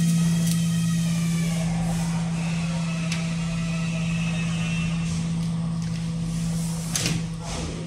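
A steady low machine hum, with a few light clicks and a sharper handling knock near the end.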